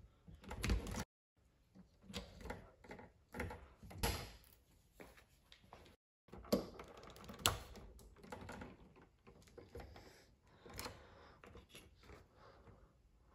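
Hand-tool work on electrical wiring: copper conductors and red-handled wire strippers clicking and scraping against a metal electrical box, in irregular short clicks.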